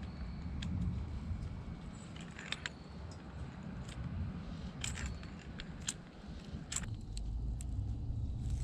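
Irregular light metallic clinks and ticks of wrenches working on a brass pipe fitting as it is tightened, over a low steady rumble.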